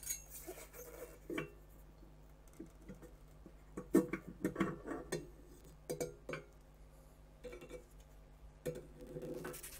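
Light metallic clinks and scrapes as a loose metal shielding plate is worked free inside the stainless steel electron column of a scanning electron microscope. The clicks come scattered and are busiest between about four and six seconds in.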